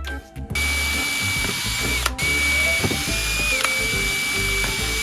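Power drill with a 3.5 mm bit drilling out RC shock absorber pistons to enlarge their holes and soften the damping. The motor runs at one steady whine from about half a second in, with a brief stop about two seconds in. Background music plays underneath.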